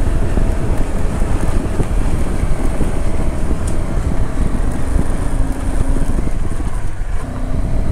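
Motorcycle engine running in second gear as the bike slows from about 40 to 23 km/h, with wind rumbling on the microphone.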